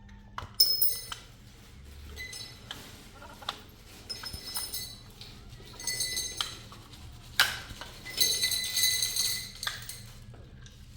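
Hard objects clinking and scraping together in a string of sharp clanks with short, high ringing. The two loudest hits come about half a second in and about seven and a half seconds in, followed by a longer rattling clatter.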